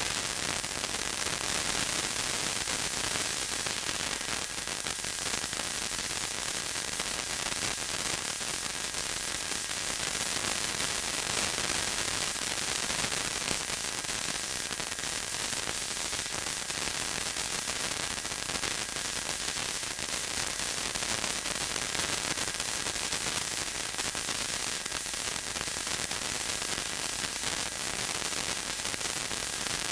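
Blaupunkt ACR 3250 car radio tuned to a weak, distant FM station on 96.5 MHz, giving a steady hiss of static with no programme audible: the station is in blank, sending dead air. A faint steady whistle sits in the hiss.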